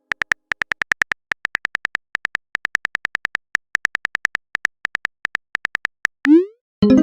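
Rapid typing-click sound effect of a phone keyboard: many short, sharp, identical ticks at an uneven pace. Near the end comes a short rising glide, then synth music starts up.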